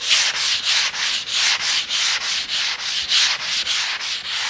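120-grit sandpaper rubbed by hand over dried primer on a cedar boat hull, in quick back-and-forth strokes at about three a second, each a gritty hiss; the sanding cuts off suddenly near the end.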